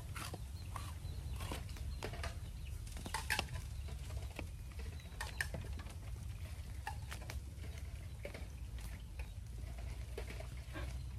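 Kitchen knife slicing pork skin and meat on a wooden chopping block: scattered light taps and scrapes of the blade on the wood, over a steady low rumble.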